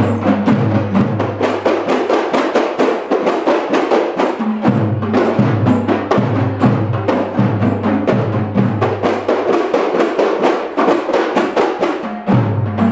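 Kompang ensemble: a group of Malay hand-beaten frame drums played together in a fast, steady interlocking rhythm of sharp slaps over deeper booming strokes.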